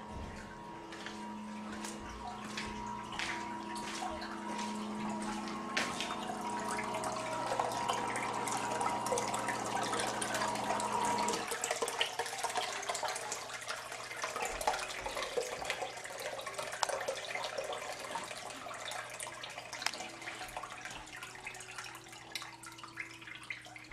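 Water running and splashing, with a steady hum that cuts off about halfway through; after that the water keeps trickling and dripping.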